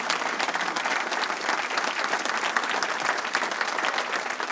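Audience applauding: the steady, dense clapping of many hands in a room.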